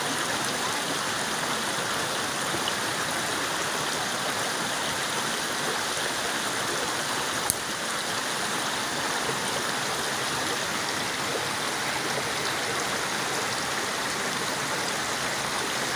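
Shallow, rocky stream flowing: a steady rush of running water, with one sharp click about halfway through.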